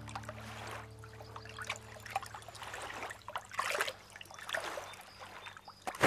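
Soft pond water trickling and lapping, coming in gentle swells with small ticks.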